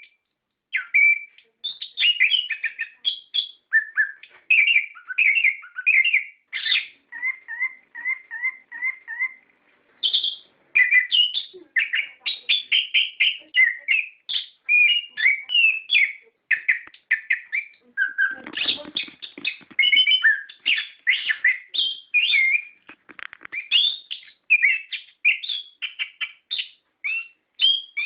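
Chestnut-capped thrush (anis kembang) singing a fast, nearly continuous song of varied chirps and whistles, broken by short pauses. About a third of the way in it repeats one note evenly several times. A rougher, lower burst comes about two-thirds through.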